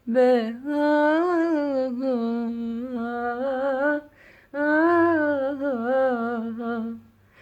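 A solo voice humming a wordless melody with no accompaniment, in two long phrases with a short break about four seconds in.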